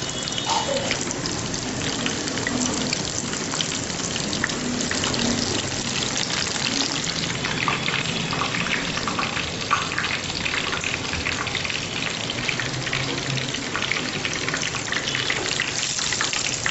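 Gram-flour-battered spinach pakoras deep-frying in hot oil: a steady, dense sizzle and crackle of fine pops.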